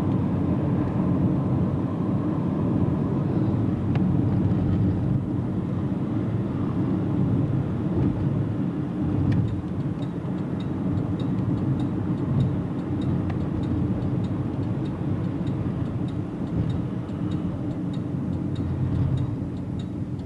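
Steady engine and tyre rumble heard from inside a moving car. About halfway through, a light regular ticking starts, about two ticks a second: the turn signal as the car slows to pull off the road.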